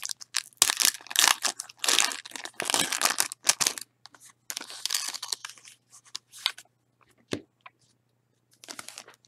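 Foil wrapper of a baseball card pack being torn open and crinkled by hand, in dense bursts of crackling over the first four seconds. Sparser rustles follow, with a single sharp tap about seven seconds in.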